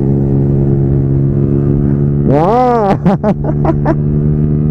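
Motorcycle engine running steadily, its pitch stepping up a little about halfway through. A short rising-and-falling whoop rises over it just after.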